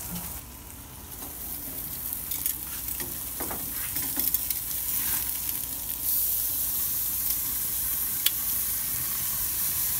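Marinated flank steak sizzling on the hot grates of a gas grill, a steady hiss that builds over the first few seconds and grows louder about six seconds in, with a few sharp clicks along the way.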